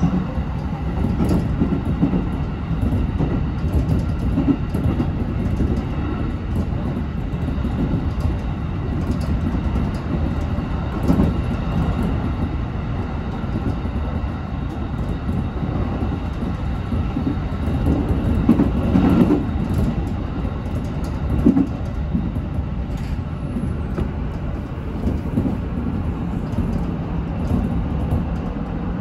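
JR Tokaido Main Line local electric train running along the line, with steady wheel and rail noise and a few brief louder knocks.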